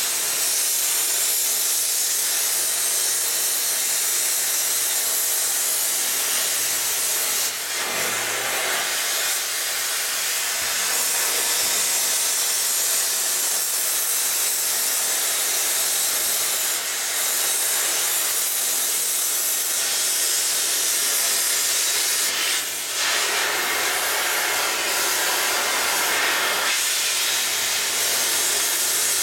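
Cutting torch hissing steadily as it cuts through the end of a steam locomotive boiler flue tube. The hiss briefly dips twice, about 8 and 23 seconds in.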